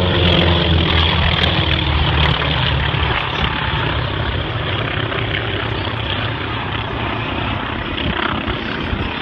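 Propeller engines of two single-engine aerobatic planes flying in formation, a steady drone with a low hum. The drone is loudest in the first few seconds and then weakens as the planes pull up into a climb.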